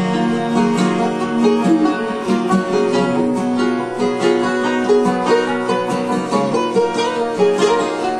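Live acoustic country music: an instrumental break between sung lines, carried by picked and strummed guitar with no singing.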